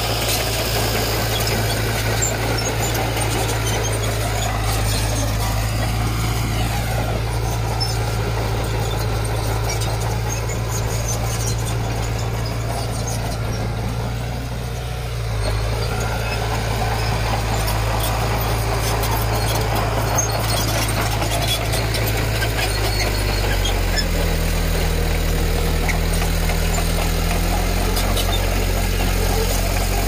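Diesel engine of a Komatsu D20P crawler bulldozer running steadily at work, with intermittent high squeals over it. The engine note shifts about halfway through and again near the end.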